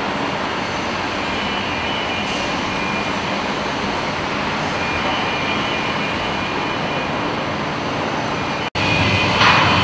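Steady industrial noise of a shipyard building hall: machinery rumble and hiss with faint intermittent high tones. It drops out for an instant near the end and comes back a little louder.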